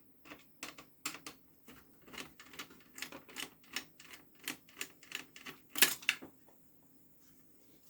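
Quick, light clicks, several a second, as a screwdriver backs a screw out of an all-in-one PC's plastic housing. The clicks stop about six seconds in.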